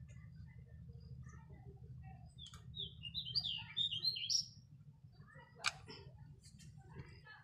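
Small birds chirping in a quick run of high notes about three seconds in, over a low steady hum. A single sharp click comes a little over a second after the chirps.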